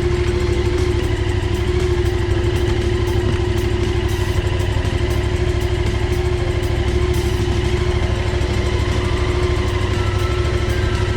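Yamaha MT-07's 689 cc parallel-twin engine idling steadily, with no revving.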